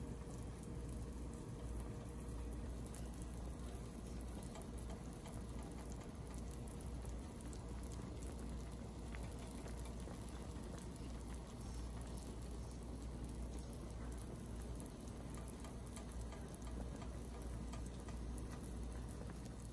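Pork stew's soy-sauce braising liquid bubbling at a steady boil in the pan, a low continuous sound with many faint small pops.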